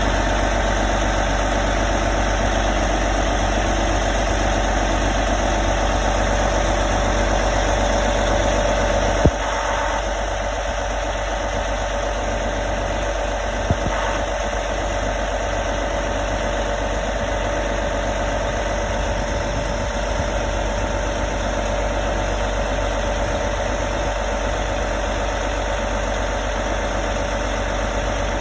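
An engine idling steadily, with a sharp knock about nine seconds in and a smaller one a few seconds later.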